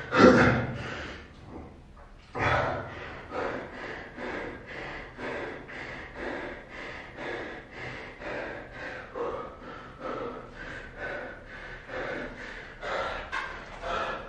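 A man breathing hard and fast after a set of burpees, panting at about two breaths a second. There is a loud burst right at the start and another about two seconds in.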